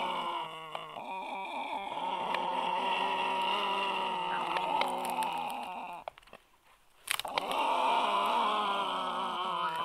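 Black stork chicks calling together in a continuous chorus of overlapping, drawn-out pitched cries, breaking off for about a second roughly two-thirds of the way through before starting again.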